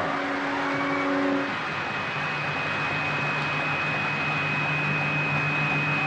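A steady noisy hum with held tones; one pair of tones stops about a second and a half in, and a low hum with a thin high tone takes over about two seconds in.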